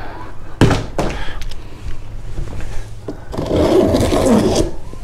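Cardboard boxes being handled: a sharp knock about half a second in and rustling of flaps, then a long scrape as a heavy inner carton is slid up out of the outer shipping box.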